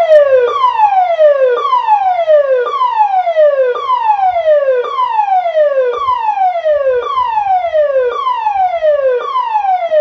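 An electronic warning siren sounding a falling tone over and over, each sweep about a second long, dropping from high to low and jumping straight back up to start again.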